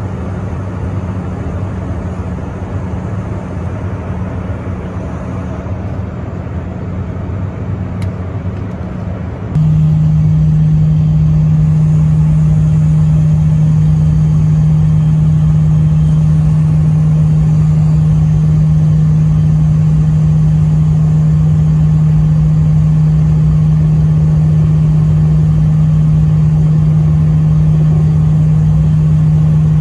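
Private jet's engine drone and airflow heard inside the cabin. About ten seconds in it jumps suddenly louder into a steadier, stronger hum as the jet flies low on approach to landing.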